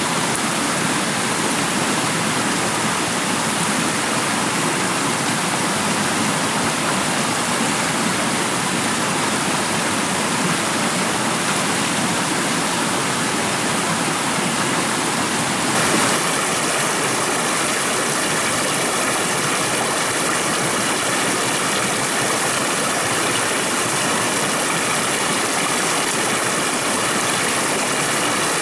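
Steady rush of flowing stream water, without pause, its character shifting slightly a little past halfway.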